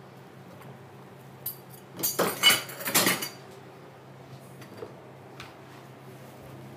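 Metal kitchen utensils clattering and clinking against each other and a cutting board: a burst of several ringing knocks about two seconds in, lasting a little over a second, over a low steady hum.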